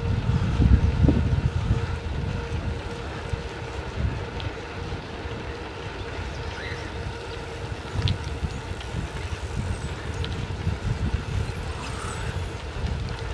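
Wind buffeting the microphone of a camera riding along on a moving bicycle: an uneven low rumble, gustiest in the first second or two, over steady rolling road noise.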